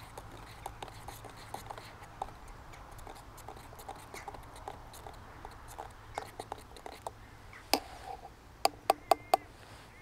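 Metal spoon stirring coffee in a steel camp mug, with light scraping and clinking against the mug. Near the end come one sharp clink and then four quick taps on the mug, each ringing briefly.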